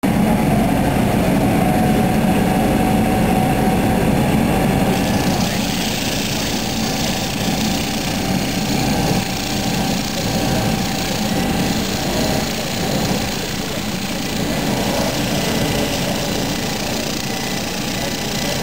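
Wood lathe running steadily with a small wooden goblet spinning on it while a turning tool works the wood.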